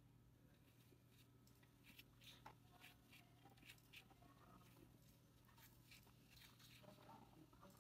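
Faint rustling and small scattered clicks of metal tweezers pushing fibre stuffing into a crocheted toy, over a low steady hum.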